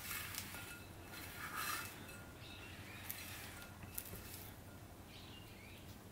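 Silicone spatula scraping and folding sticky, wet bread dough around a glass mixing bowl, with soft squelchy scrapes and a couple of light clicks against the glass.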